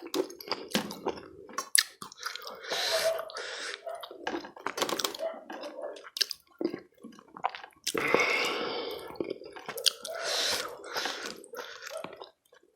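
A person chewing rice and chicken curry: wet, squishy mouth sounds with irregular smacks and clicks, and a longer wet smear about eight seconds in.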